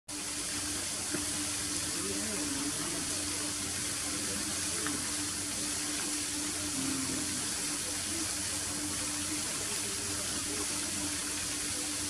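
Steady hiss of running water, with a low steady hum beneath it.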